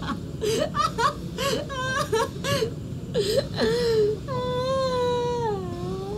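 A woman laughing in short high bursts, then a long drawn-out high vocal note that dips and falls away near the end.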